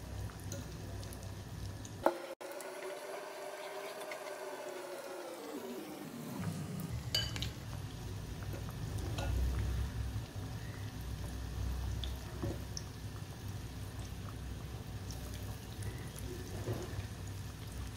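Marinated chicken tikka pieces deep-frying in hot ghee in a wok, a steady sizzle and bubbling with small crackles throughout. A sharp click sounds about two seconds in.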